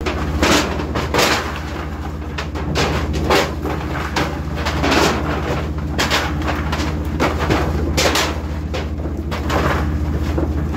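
A boat's engine running steadily under irregular clanks and knocks of metal trays and frozen skipjack tuna being handled and dropped into the fish hold.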